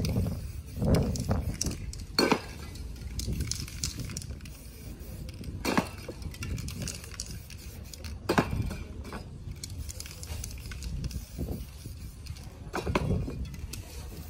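Aerosol spray-paint cans clinking and knocking against each other as they are picked up and set down, several times, with short sprays of paint in between.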